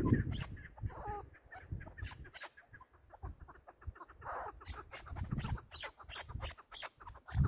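Chukar partridges calling in a rapid run of short clucking notes. Low rumbles come through at the start, about five seconds in, and again at the end.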